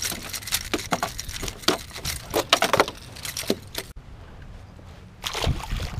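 A small fish flopping on a boat deck: a run of irregular sharp slaps and taps that stops suddenly about four seconds in.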